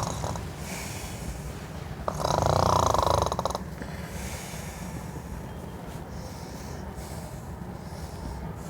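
A person snoring: one long snore about two seconds in, lasting about a second and a half, then faint background hiss.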